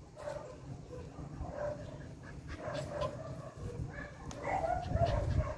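Jack Russell terrier whining and yipping in short, repeated cries while the dogs are locked in a mating tie, with a low rumble about five seconds in.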